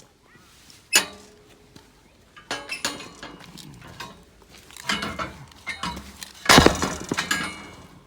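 Metal clanking and knocking: a sharp clank about a second in, then clusters of knocks, the loudest near the end, some of them ringing briefly.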